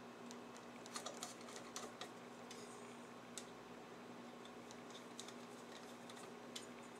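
Faint, irregular small clicks and taps of hand work on a Leslie two-speed upper motor as its parts are tightened up.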